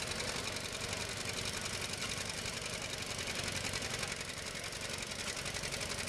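Old John Deere two-cylinder tractor engine running hard under load as it drags a pulling sled, with a fast, even beat.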